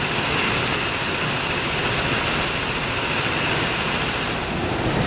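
Petrol go-kart engines running, a steady dense din with a steady high whine over it.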